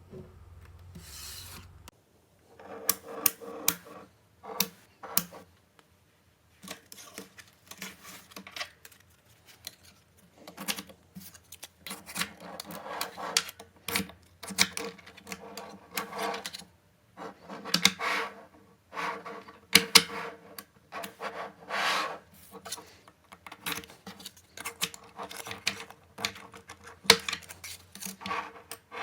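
Small magnetic balls being handled on a hard surface: sharp clicks as they snap together, mixed with rubbing and scraping as they are pushed and rolled. The sounds come in irregular bursts with short pauses.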